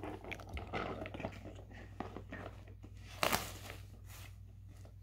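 Kinetic sand crunching and crackling softly as a plastic block mold is pressed down into it on a plastic tray, with one louder, sharper sound a little past three seconds in.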